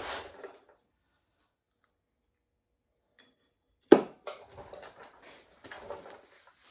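Metal transmission parts being handled on a workbench: one sharp metallic knock about four seconds in, then light clinks and rubbing.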